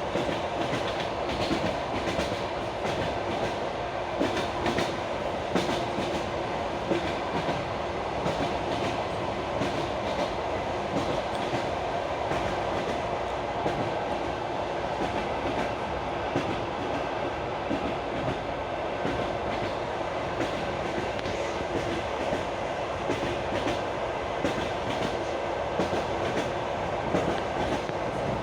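Railway carriage wheels clacking over rail joints, heard from aboard a moving train, over the train's steady running rumble.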